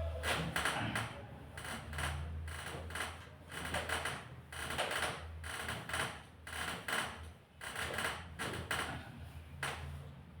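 Irregular short rustles and knocks, about one or two a second, from hands-on manual back treatment: hands and clothing rubbing and the treatment table creaking, over a steady low hum.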